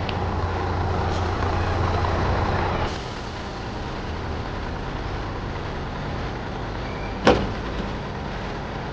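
Steady road-vehicle rumble and hiss, louder for the first three seconds and then dropping suddenly, with a single sharp knock about seven seconds in that is the loudest sound.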